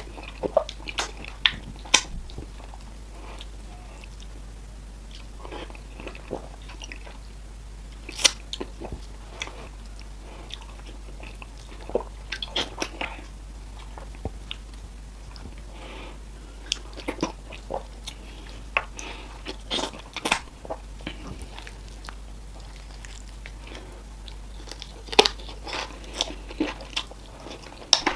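Close-miked eating of fufu: irregular wet smacks and mouth clicks of chewing and swallowing, coming in clusters, over a faint steady low hum.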